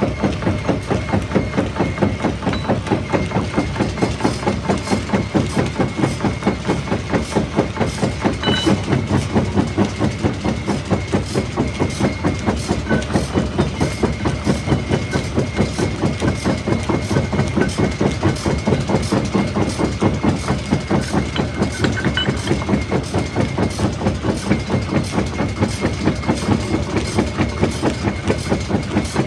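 Jaw rock crusher running, pulsing in a fast, even beat of several strokes a second, with a faint steady high whine over it.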